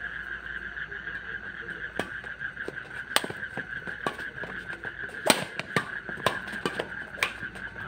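Badminton rally: a string of sharp cracks of rackets striking a shuttlecock, roughly one a second, over a steady high-pitched drone.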